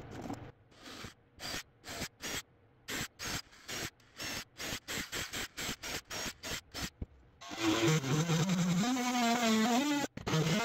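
A cordless drill runs in short bursts, boring a ring of small holes through the wall. About seven seconds in, a handheld cordless cutting tool starts running continuously with a wavering whine, cutting along the ring of holes to free the circle.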